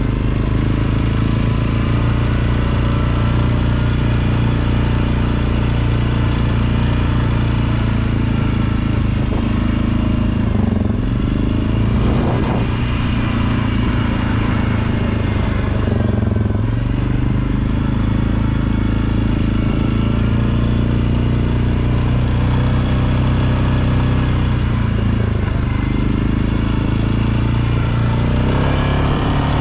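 ATV (quad) engine running steadily as it rides along a trail, with a few brief changes in engine speed.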